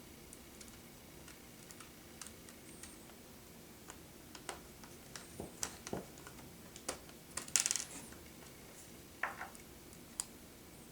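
Light, scattered clicks and taps of small laptop screws and a screwdriver being handled against the plastic screen bezel and case during a screen replacement, with a brief rattle about three-quarters of the way through.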